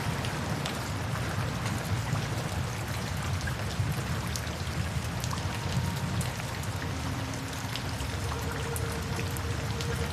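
Steady rain falling, with many single drops ticking through the even hiss.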